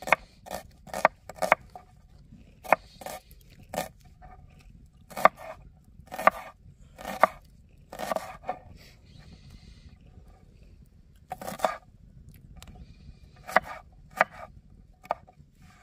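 Kitchen knife chopping vegetables on a cutting board: a string of uneven sharp knocks, a few each second, with a short pause near the middle.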